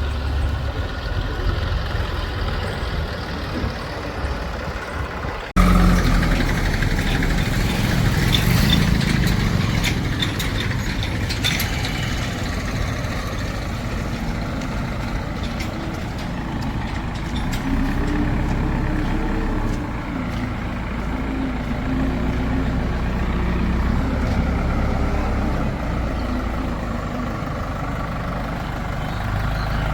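Diesel engines of a JCB 3DX backhoe loader and farm tractors running, with the engine note rising and falling as it works under load. About eight to twelve seconds in there is a run of sharp metallic knocks and clanks.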